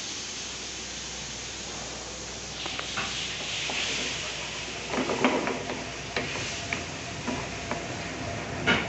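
A spoon stirring and mashing potatoes in a metal pan, scraping and knocking against the pan several times, loudest about five seconds in and again near the end, over a steady hiss.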